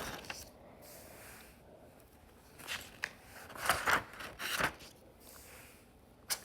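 Paper pages of a notebook being handled and turned: a few short rustles and scrapes past the middle, with quieter handling noise before and after.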